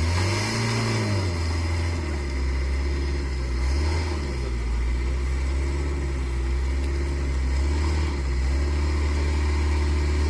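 Motor vehicle engine idling, revved up and back down once about a second in, then swelling briefly again near four and eight seconds.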